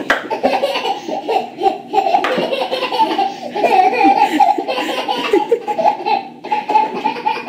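Hearty, continuous laughter, with a short lull about six and a half seconds in.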